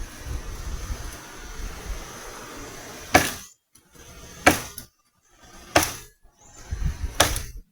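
Four chopping strikes of a blade into wood, evenly spaced about one every 1.3 seconds, each a sharp crack. A low rumbling noise comes before them in the first three seconds.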